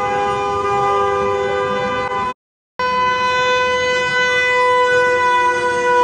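Several car horns held down together in a long, steady honking chorus from a passing convoy of cars. The sound cuts out completely for about half a second a little past halfway, then the honking carries on.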